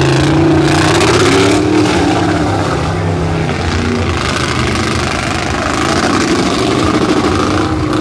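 Engine of an orange Toyota short-chassis off-road racer revving as it runs the dirt course. The pitch climbs over the first second or two, the engine sound fades somewhat midway, and it picks up again near the end.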